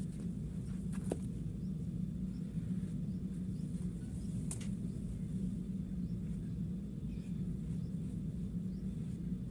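A steady low hum of background noise, with two light clicks, about a second in and midway, from a ruler being handled and set down on the cloth.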